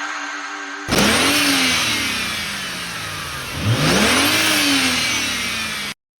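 A car engine revved twice: each time the pitch climbs quickly and then falls slowly as it comes off the throttle. The sound cuts off abruptly near the end.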